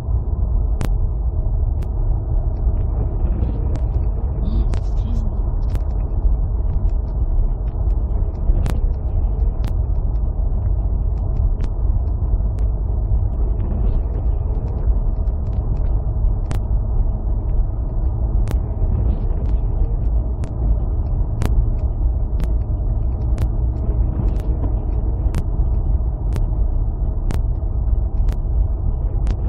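Steady low rumble of a car driving on a snow-covered road, heard from inside the cabin, with light sharp clicks every second or two.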